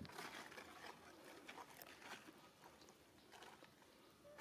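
Near silence: faint outdoor ambience with scattered small clicks and rustles.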